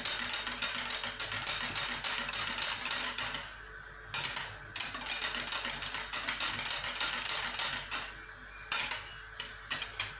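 A utensil stirring fast in a saucepan of thickened milk-and-starch custard, scraping and clicking rapidly against the pan, with two short pauses.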